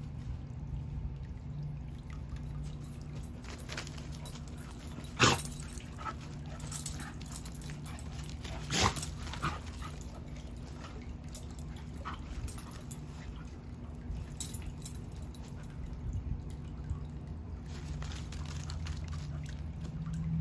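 A dog gives a short bark about five seconds in and a few more about nine seconds in, over a steady low hum.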